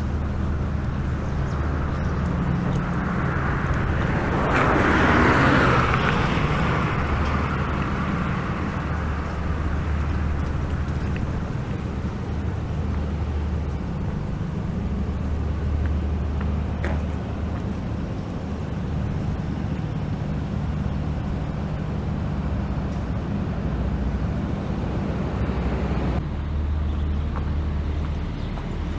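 Street ambience of road traffic: a steady low rumble, with a vehicle passing that swells to its loudest about five seconds in and fades over the next few seconds.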